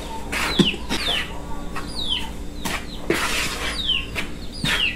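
Chickens calling with repeated short, high notes that fall in pitch, over the intermittent scraping of flour and dry ingredients being stirred in a bowl.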